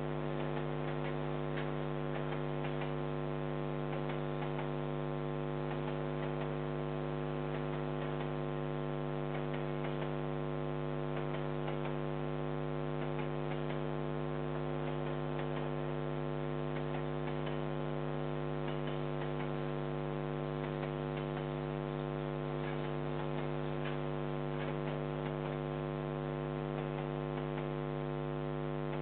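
Steady electrical mains hum, a low buzz with many overtones, picked up in the security camera's audio, with faint irregular crackle above it.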